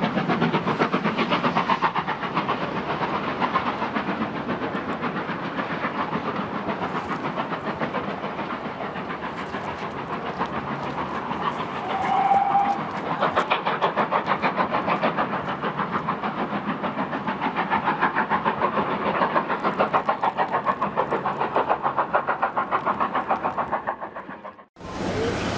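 Two GWR 0-6-0 pannier tank steam locomotives working a train, their exhaust beats coming in a quick, even rhythm as they pull away, with a brief steady note about twelve seconds in. The sound drops away sharply near the end as the shot fades.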